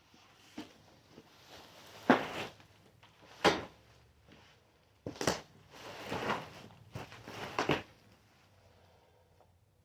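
Packaging and parts of an adjustable bed base being handled during unboxing: a series of knocks and thumps with scraping, the sharpest about two, three and a half and five seconds in, then a run of rougher scrapes and bumps.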